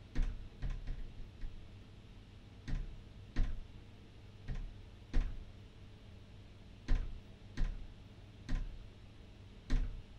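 A series of sharp knocks or taps in a quiet room: a quick flurry in the first second and a half, then knocks coming mostly in pairs about 0.7 s apart every couple of seconds.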